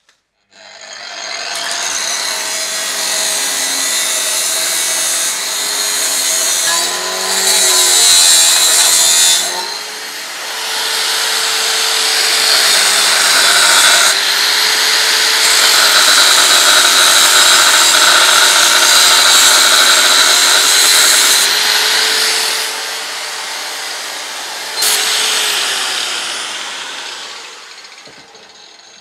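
Electric power tool cutting steel: a loud cutting hiss over the motor's whine, the pitch sagging as the tool is pressed into the work and recovering when it eases off. The cut pauses and resumes several times and dies away near the end.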